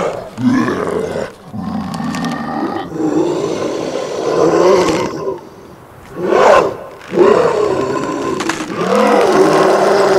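Designed werewolf transformation sound effect: a run of beastly growls and roars whose pitch slides up and down, breaking off twice, with a short, loudest cry about six and a half seconds in.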